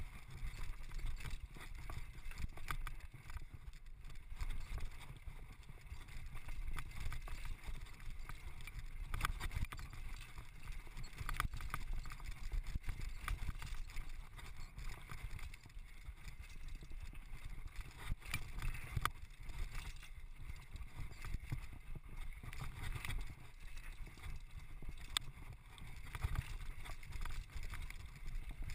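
Downhill mountain bike running fast over a stony dirt trail, heard from a camera on the rider: a steady low rumble of wind and ground vibration, with scattered clicks and rattles from the bike and tyres over stones.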